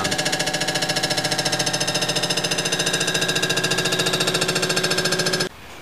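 Block resurfacing machine running, its cutter head machining the tops of ductile iron cylinder sleeves down flush with the deck of a Subaru EJ257 block. It makes a loud, steady, rapid pulsing chatter that cuts off suddenly near the end.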